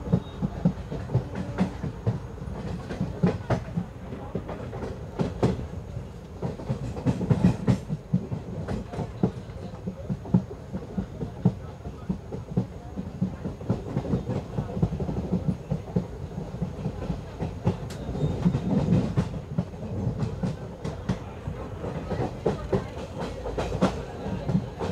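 Express passenger train running on the rails, heard from on board: a steady low rumble with the wheels clicking and clattering irregularly over rail joints.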